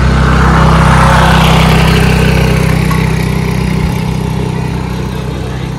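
Car engine running close by with a steady low hum. It grows louder about a second in, then gradually eases off.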